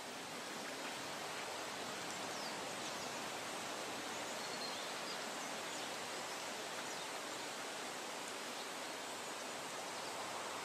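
Steady faint outdoor background hiss, like light wind over open ground, with a few faint high chirps.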